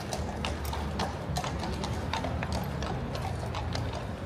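Household Cavalry horses' hooves clopping, several sharp, irregular hoofbeats a second from more than one horse, over a steady low rumble.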